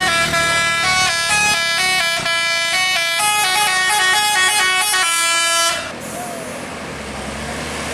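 Dump truck's multi-tone 'telolet' horn playing a melody of stepping notes, cutting off a little before six seconds in, followed by steady background noise.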